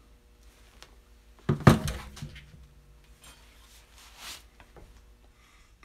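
A single heavy knock about one and a half seconds in, with a short low ring after it: a Ryobi corded reciprocating saw being set down on a wooden workbench.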